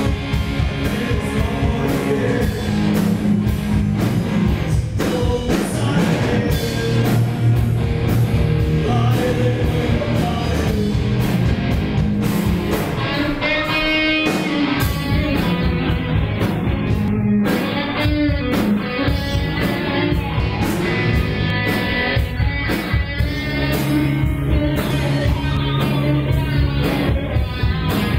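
Live rock band playing with drums, electric guitar and bass guitar, and a man singing.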